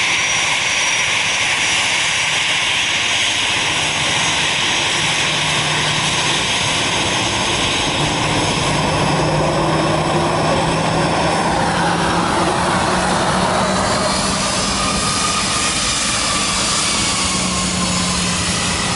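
Twin jet engines of an Airbus A320-family airliner running at low taxi power close by: a steady roar with a high whine. About two-thirds of the way through, the whine's tones bend and slide in pitch as the aircraft turns.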